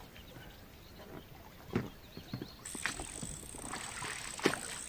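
An inflatable dinghy being rowed off from the bank: the oars dip and pull through the water with a few separate knocks and splashes, the loudest near the end.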